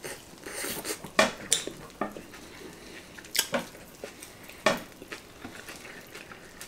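Chopsticks and eating utensils clinking against dinner plates: a few sharp, scattered clicks about a second apart.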